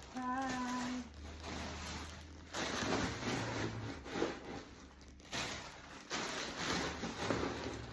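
Handling of a canvas-and-leather handbag: several bursts of rustling and scraping noise as the bag is moved and turned, after a brief hummed note at the start.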